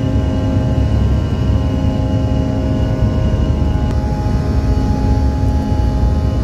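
Jet airliner's engines running during takeoff: a loud, steady low rumble with several steady whining tones over it. A single click about four seconds in, after which the tones shift slightly.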